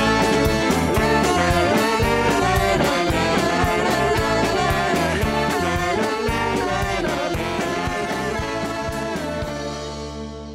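Closing theme music with a steady beat, fading out over the last few seconds.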